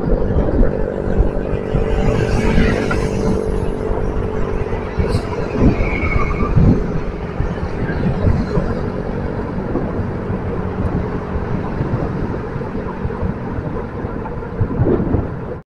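Motor traffic and road noise heard while riding along a busy multi-lane city road, a steady rush with motorbikes and cars nearby. A brief high tone sounds about six seconds in, and the sound cuts off abruptly at the end.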